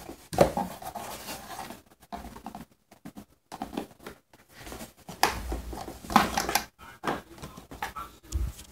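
Cardboard box scraped, rustled and tapped as a Bengal cat paws and bites at a toy through a hole and a hand works the toy inside: irregular scratchy scrapes and taps, with a couple of dull thumps on the box.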